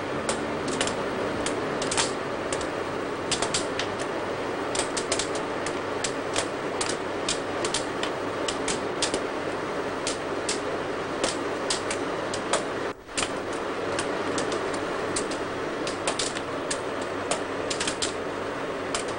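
Assembly-line factory noise: a steady machine hum with rapid, irregular clattering and clicks, several a second, from bench tools and parts.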